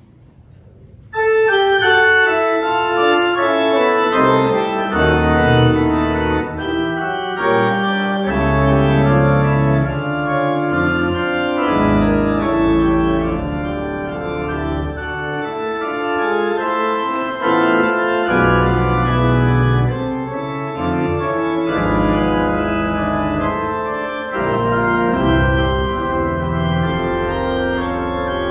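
Organ music: sustained chords over low bass notes, coming in loudly about a second in after a faint start.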